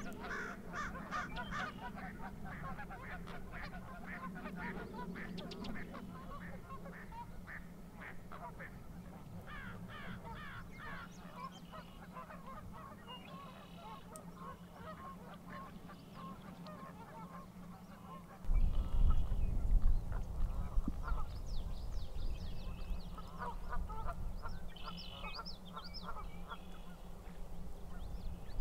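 A dense run of goose honks and duck calls, busiest in the first half, with scattered higher bird chirps later. About two-thirds of the way in, a loud low rumble sets in and carries on under the calls.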